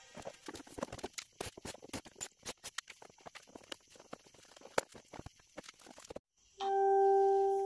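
Rapid, irregular clicking and clattering of plastic interior trim being handled and unclipped during a Silverado center console removal, sped up by the time-lapse. After a brief silence near the end, a steady electronic beep sounds for about a second and is the loudest sound.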